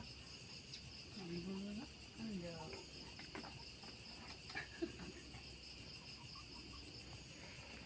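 A steady, high-pitched chorus of night insects chirping, with faint low voices early on and a few small clicks.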